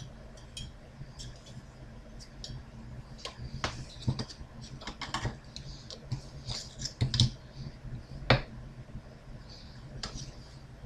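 Irregular clicks and taps of small metal and plastic computer parts and hand tools being handled on a motherboard, the sharpest about eight seconds in.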